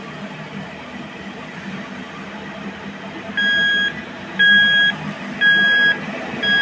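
Construction vehicle's reversing alarm, beeping about once a second, starting about three and a half seconds in. Under it runs a steady low rumble of heavy machinery.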